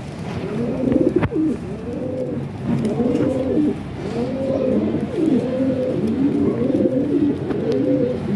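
Several domestic pigeons cooing at once, their rolling coos overlapping without a break.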